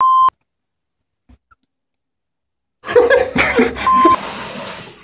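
A short, steady electronic beep, then dead silence; near the end loud, busy room noise comes in, and the same beep sounds again briefly about four seconds in.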